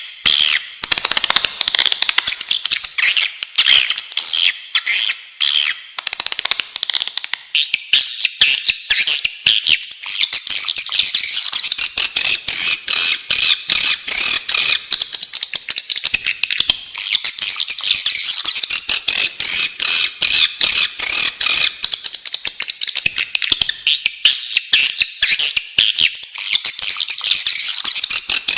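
A flock of swiftlets twittering in rapid, dense high-pitched chittering trills, the call sound played to lure swiftlets into a nest house. The chatter grows fuller and denser about a quarter of the way in.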